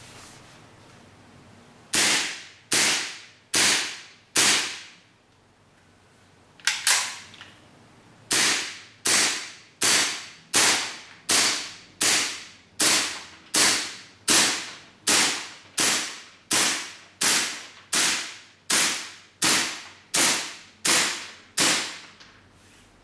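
KC-02 green-gas blowback airsoft carbine with a steel bolt fitted, firing semi-auto: four shots, a pause, then a steady string of about twenty shots a little under a second apart. The shots stay even in strength through the string, a sign that the heavier steel bolt still cycles well on one charge of green gas.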